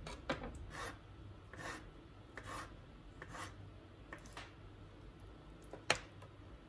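Kitchen knife slicing a peeled avocado half on a wooden cutting board: about seven short scraping strokes as the blade cuts through and meets the board, then one sharp knock about six seconds in.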